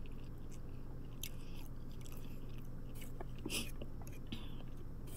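Close-miked mouth sounds of a person chewing a mouthful of spaghetti: scattered wet smacks and clicks over a faint steady hum.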